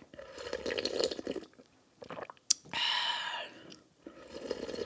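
Close-up chewing of a juicy mouthful of watermelon hwachae, wet crunching and smacking in two spells. About two and a half seconds in there is a sharp clink, followed by a short pitched, voice-like sound.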